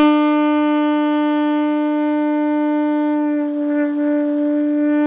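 Saxophone holding one long, steady tone on the note E as an embouchure exercise. Partway through the tone briefly dips and changes colour as the player shifts his lips and jaw, then settles back.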